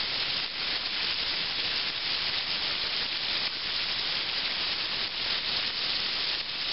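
Battered chicken-fried steak sizzling steadily as it deep-fries in hot oil in a stainless skillet, the meat still frying hard.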